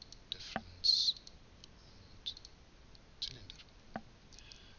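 Computer mouse clicking a few times, single sharp clicks spaced a second or so apart, as menu options are picked in software.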